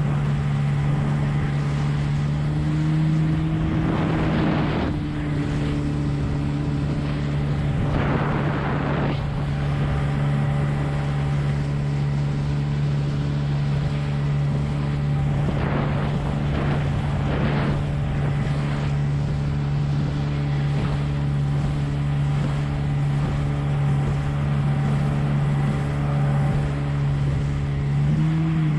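20 hp Evinrude outboard running steadily at cruising speed, driving a small hydroplane at about 30 km/h, its pitch rising briefly a few seconds in and again near the end. A few short rushing noises pass over it.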